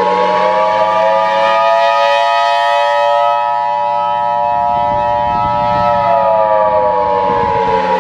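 Civil defense warning siren wailing, several pitches sounding together as a chord. It finishes its rise, holds steady, then starts to wind down about six seconds in.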